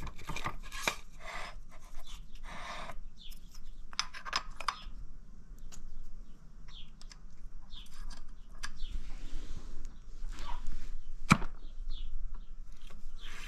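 Hand-handling of small hardware: a phenolic caster wheel, steel washers and a spacer sliding and clicking on a steel axle, with scraping and rubbing between the clicks and one sharper click near the end.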